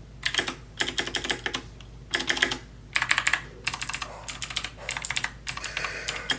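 Computer keyboard keys typed rapidly in about seven short bursts of crisp clicking, with brief pauses between the bursts.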